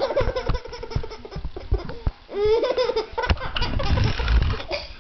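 Laughter in two bouts of quick, repeated bursts, with a short break a little over two seconds in.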